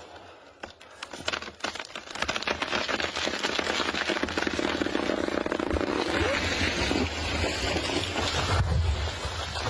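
A gasoline chainsaw's engine running. It comes in loud about two seconds in, after a few scattered crackles and clicks.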